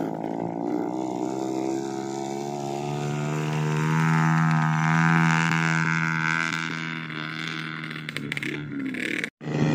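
Trail motorcycle engine running at a steady, even pitch while laden with sacks of rice grain. It grows louder as the bike passes close, about four to five seconds in, then fades a little. The sound cuts out for an instant near the end.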